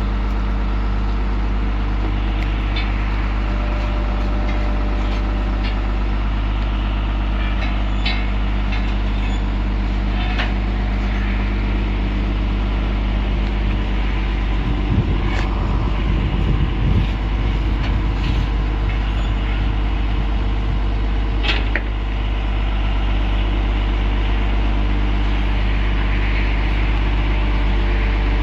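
A heavy engine idling steadily, with a rougher rumble for a few seconds past the middle and scattered sharp metallic clicks and knocks over it.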